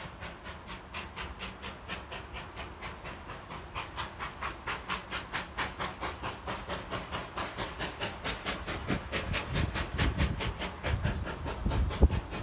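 Steam locomotive exhaust beats, sharp rapid chuffs at about four or five a second, growing louder as the engine comes closer. A low rumble from the train builds near the end.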